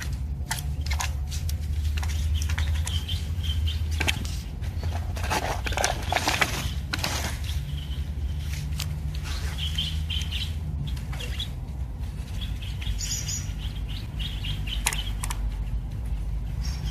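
Birds chirping on and off over a steady low rumble, with scattered sharp clicks as the plastic drone and its controller are handled.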